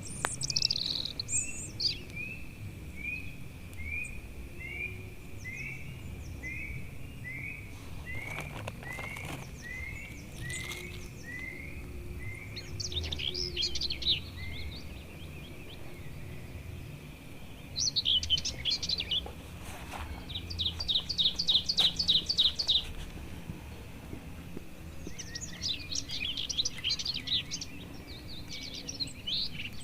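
Several forest birds calling. One bird repeats a short rising note about twice a second for the first dozen seconds. Others break in with bursts of higher chattering song, the loudest a fast, even trill a little past the middle.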